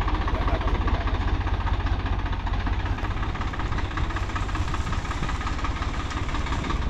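Swaraj 855 tractor's diesel engine running steadily under throttle, a dense rapid low pulsing that eases slightly in the second half.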